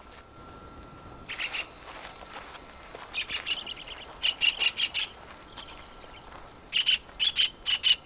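A bird calls in about four short bursts of rapid, repeated notes, spaced a second or two apart.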